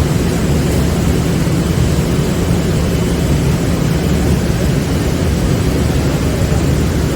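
Kärcher IVS 80/75 industrial vacuum cleaner running steadily, sucking up sawdust.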